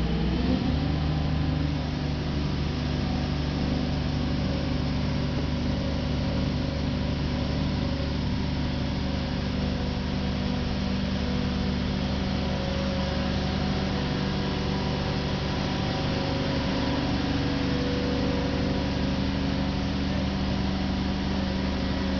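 Heavy truck engine running steadily, its pitch dropping and settling within the first second, then holding an even hum.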